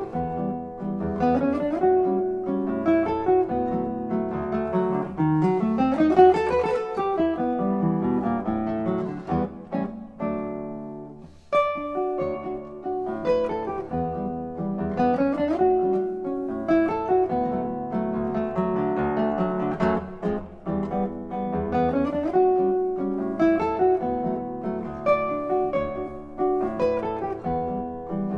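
Solo nylon-string classical guitar playing a Brazilian choro, with quick plucked melodic runs over a moving bass line and a fast rising run about six seconds in.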